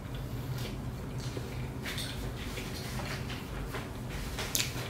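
Mouth sounds of someone chewing a bite of a McChicken sandwich: scattered soft clicks and smacks, a little louder near the end, over a steady low hum.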